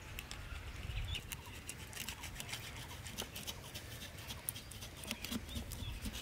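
A knife scraping and cutting across the scales of a large rohu fish, an irregular run of short rasping clicks.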